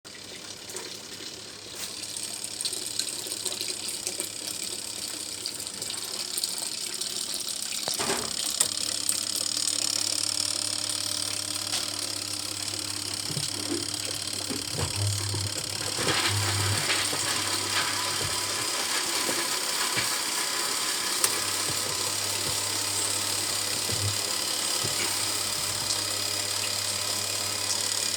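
Old twin-tub washing machine's wash motor humming steadily from about eight seconds in, with a short break a little past the middle, over a constant hiss.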